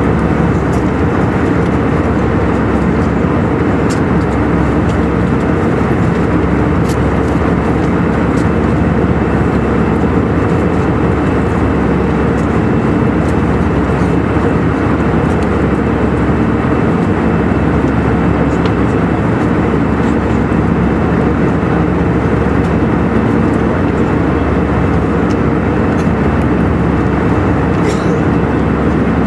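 Steady cabin noise of a jet airliner in cruise: the even rush of engines and airflow with a low hum under it.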